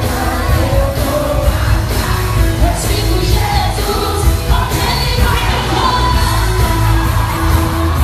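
A live band with an amplified lead vocal singing a melody over heavy bass, heard through the hall's PA from within the audience.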